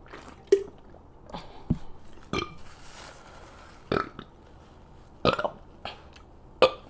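A woman's short, small burps, several in a row, that she struggles to bring up fully.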